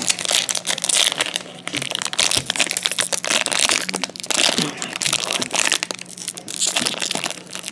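Foil wrapper of an Upper Deck MVP hockey card pack crinkling and crackling as hands work and tear it open, in dense bursts with a few short lulls.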